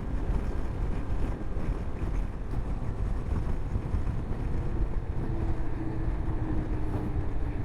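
Honda CB500X's parallel-twin engine running on the move, with steady wind rushing over the microphone.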